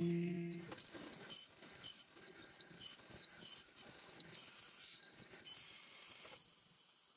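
Faint, irregular clicks and rattles of a hollow-chisel mortiser working a square chisel into a wooden beam. The sound drops away about six seconds in.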